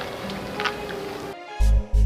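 Background music that cuts off abruptly about one and a half seconds in, replaced by a deep, loud throbbing beat in pairs, like a heartbeat: a suspense cue.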